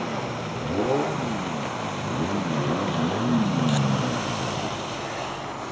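Jet ski engine revving up and down over and over, its pitch swinging up and down about once a second, over a steady rushing noise. The engine note fades out after about four seconds, leaving only the rushing noise.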